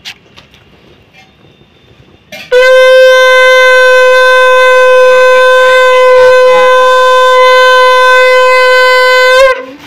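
Conch shell (shankh) blown in one long, loud, steady note of about seven seconds. It starts a couple of seconds in and bends slightly up in pitch just as it stops. This is the customary conch blast that closes an aarti.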